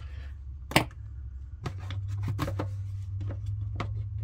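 Hands handling and turning the black plastic bottom cover of an Instant Pot Duo: scattered sharp plastic clicks and taps, the loudest about a second in and a run of them near the middle, over a steady low hum.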